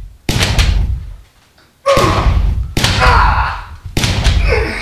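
Four gunshots in quick succession, each with a long echoing tail: sound effects laid over a toy blaster being fired repeatedly.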